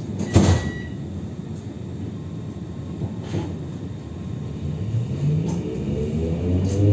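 Interior of a Translohr tram: a high door-warning beep ends with a loud thud of the doors shutting about half a second in. From about four and a half seconds the electric traction motors start a rising whine as the tram pulls away from the stop.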